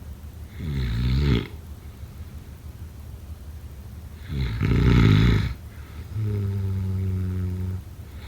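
A sleeping person snoring: two rough snores about four seconds apart, the second louder and longer, then a steady low hum lasting about a second and a half.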